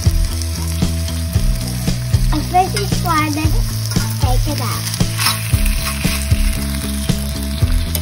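Salmon fillets sizzling in a cast iron skillet, with a metal spatula scraping and tapping against the pan. Under it runs a low steady drone that changes pitch every second or two.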